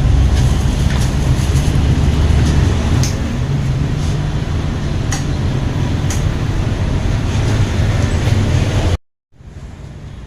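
Suzuki Satria FU motorcycle with a swapped-in Suzuki GSX engine running loud and steady, its sound heaviest in the low rumble. About nine seconds in it cuts off abruptly, and a quieter steady engine sound follows.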